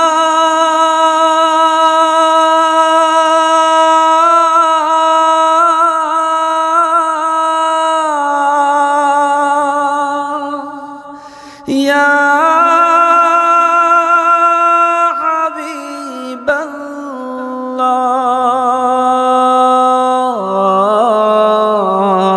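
A man singing a Bangla Islamic gojol (naat) in long drawn-out, wavering notes. The voice drops away briefly about eleven seconds in, then comes back on a new held phrase.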